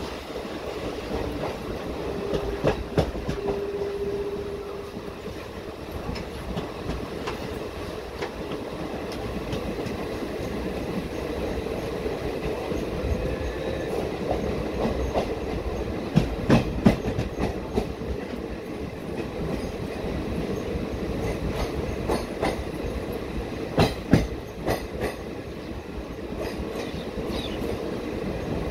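Indian Railways passenger coach running at speed, heard from its open doorway: a steady rumble of wheels on the rails with clickety-clack over the rail joints and sharper clacks at times.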